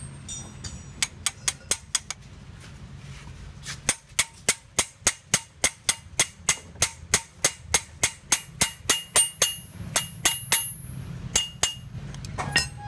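Repeated hammer strikes on metal, about three a second, each with a slight metallic ring, over a steady low hum.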